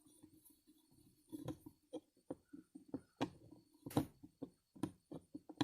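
Metal tools and carburetor parts being handled on a workbench: a string of irregular clicks and knocks, over a steady low hum.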